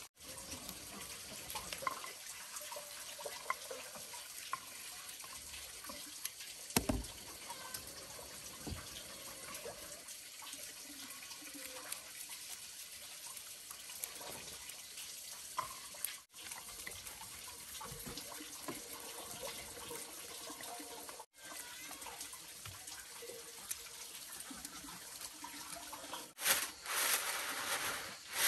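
Water running steadily, with a few light knocks, and a louder burst of water noise near the end.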